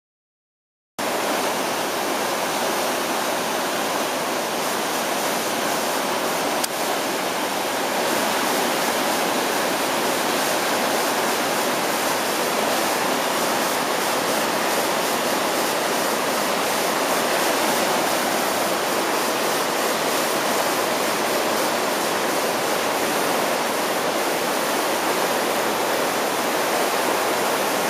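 River rapids rushing over rocks, a steady, loud noise of white water that cuts in suddenly about a second in.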